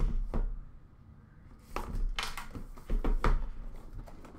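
Cardboard trading-card box being handled: a few dull knocks and short scrapes as the box is tipped and its inner case slid out, in two or three clusters.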